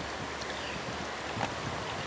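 Steady rushing noise of fast-flowing river floodwater, with a few faint light knocks.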